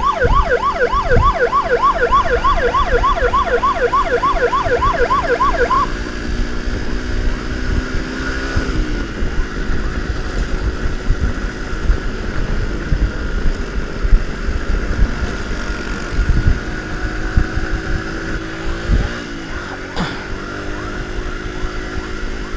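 Fast yelping emergency siren, about three rising sweeps a second, cutting off about six seconds in. After that, a motorcycle engine running steadily under wind buffeting on the microphone, its pitch shifting briefly twice.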